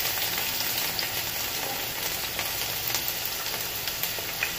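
Chopped onions frying in hot vegetable oil in a pan, a steady sizzle with a few faint clicks.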